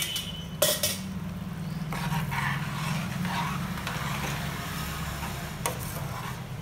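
Steel spoon stirring thin curry gravy in a stainless steel pan, with a sharp clink of spoon on pan soon after the start and another near the end, over a steady low hum.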